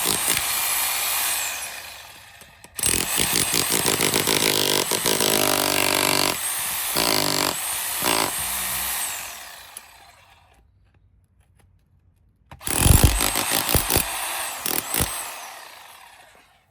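Berserker 1300W electric SDS-Max demolition hammer chiselling concrete, running in three bursts of rapid hammering with the motor winding down between them; the longest burst lasts about seven seconds, and it stops for about two seconds before the last one.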